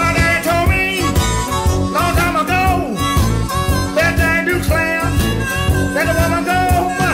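Blues music with a steady beat and a lead melody that bends in pitch.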